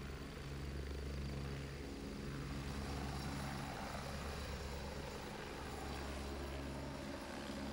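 Agusta A109 military helicopter's rotor and turbine engines running as it lifts off and climbs away: a steady low hum with a rushing noise that grows about three seconds in.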